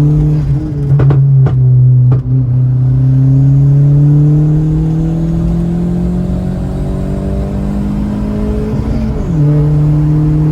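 Turbocharged 1.0 VW Gol G6 engine pulling hard under acceleration, heard from inside the cabin: its note climbs slowly for several seconds, then drops sharply about nine seconds in at a gear change. A few sharp cracks come in the first two seconds.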